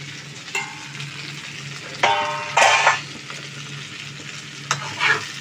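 Potato and taro (kochu) pieces frying in oil in a kadai, sizzling, with a couple of short metallic rings and scrapes from the pan about half a second and two seconds in.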